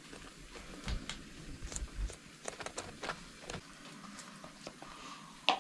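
Scattered light clicks and taps of hands and a utensil working food, with a few soft thumps in the first two seconds.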